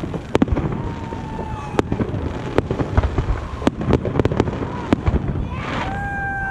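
Aerial firework shells bursting overhead: an irregular string of sharp bangs, roughly two a second, over a low rumble, with crackling bursts.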